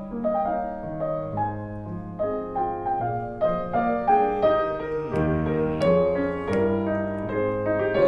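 Steinway grand piano played in a classical style: a melody over moving accompaniment, the texture growing fuller and a little louder from about halfway through.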